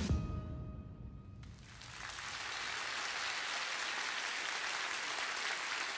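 The last note of the music dies away. About two seconds in, an audience starts to applaud, and the clapping builds to a steady level.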